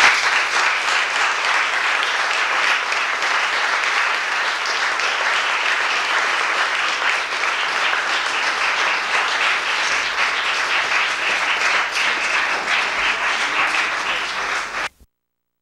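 Audience applauding: a dense, steady round of clapping that starts all at once and cuts off suddenly near the end.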